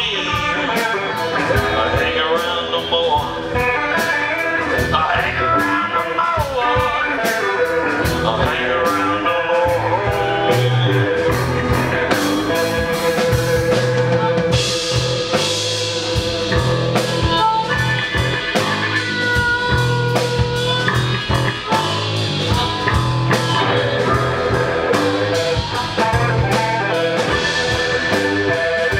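A live blues-rock band playing an instrumental stretch: electric guitars over a steady drum-kit beat, with harmonica.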